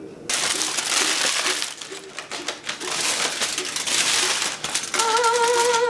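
Crumpled aluminium foil crinkling and crackling as a foil tent is lifted off a roasting pan and handled, with many small crackles. About five seconds in, a voice hums a held note over the rustling.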